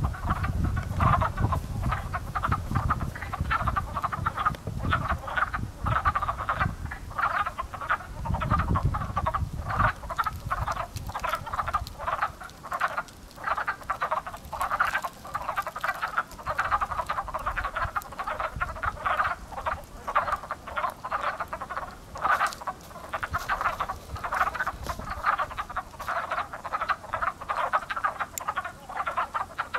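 Many wood frogs calling at once in a breeding pool: a dense, unbroken chorus of short, hoarse clucking calls that can be mistaken for crows, the sound of the frogs' early-spring breeding.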